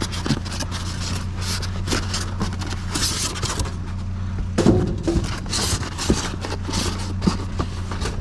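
Rummaging through a box of scrap metal: irregular scraping, rustling and light clattering of metal and cardboard, loudest about halfway through, over a steady low hum of a running vehicle engine.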